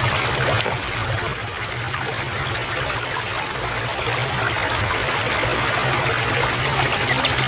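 Water running in a stream, a steady trickling flow.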